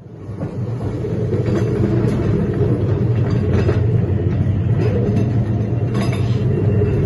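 Ghost train dark-ride car rolling along its track: a steady low rumble with occasional brief rattles.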